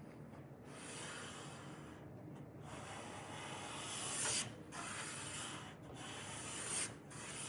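Hand plane with a freshly sharpened blade taking shavings off a board: about five strokes in a row, each roughly a second long.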